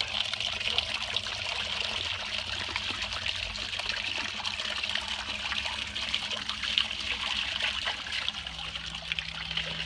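Small solar-pumped garden waterfall: water trickling and splashing steadily as it spouts from a mask into a shallow basin and spills over the basin's edge.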